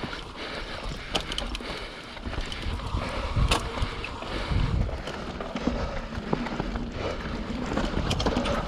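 YT Capra 29 mountain bike riding down a dirt trail: steady tyre and trail noise with many sharp rattles and clicks from the bike, and wind rumbling on the microphone.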